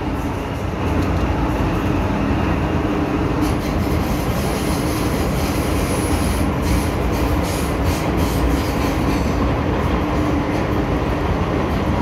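MTR Kwun Tong Line M-Train electric multiple unit running at speed through a tunnel, with a steady rumble of wheels on rail that gets louder about a second in. A thin high whine sounds for a couple of seconds midway.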